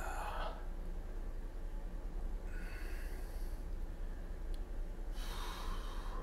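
A man's breathing while he flexes: three short hissing breaths, one at the start, one about three seconds in and one near the end, over a low steady hum.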